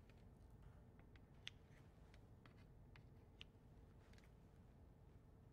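Faint kitchen scissors snipping into soft breadstick dough: scattered, irregular small clicks, the clearest about a second and a half and three and a half seconds in, against near silence.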